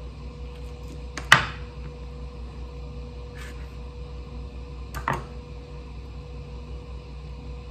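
Anova sous vide precision cooker running with a steady hum as it cooks a steak. Two sharp knocks on a wooden cutting board cut through it, the louder one about a second in and a softer one about five seconds in.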